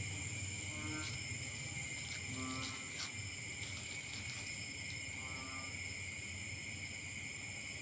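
A steady, high-pitched chorus of night insects, with a short low animal call every couple of seconds over a faint low hum. A small click sounds about three seconds in.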